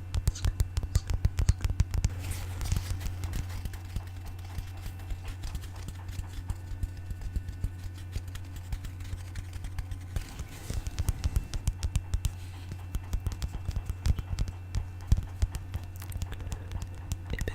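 Rapid, irregular tapping and light scratching on objects close to the microphone, bunched in quick flurries, over a steady low hum.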